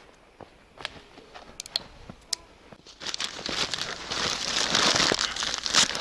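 A few sharp clicks, then about three seconds in, loud continuous crumpling and tearing of newspaper, scrunched up as tinder to light a campfire.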